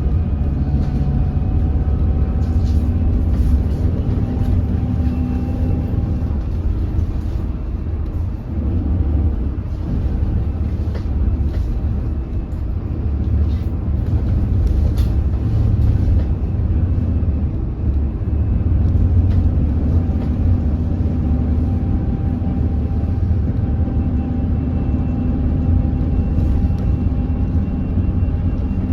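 Hyundai Elec City hydrogen fuel-cell bus heard from inside the cabin while driving: steady low road and drivetrain rumble, with a faint electric motor whine that slowly rises and falls with speed. This whine is the unusual noise from the drive motor.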